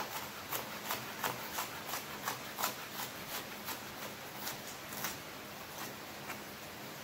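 Chef's knife slicing a green bell pepper into strips on a cutting board: a run of sharp knife taps against the board, roughly three a second, thinning out near the end.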